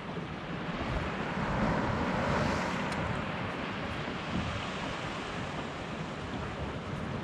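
Steady sea noise of waves washing, mixed with wind on the microphone, swelling briefly about two seconds in.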